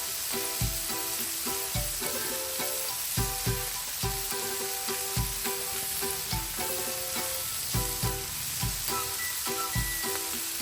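Ground beef patties sizzling on a Blackstone flat-top griddle as they sear, a steady hiss of fat frying. Background music with short plucked notes and a light beat plays over it.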